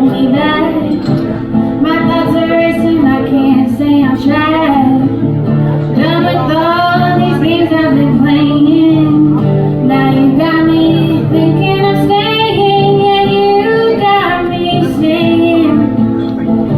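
A woman singing a song over an acoustic guitar.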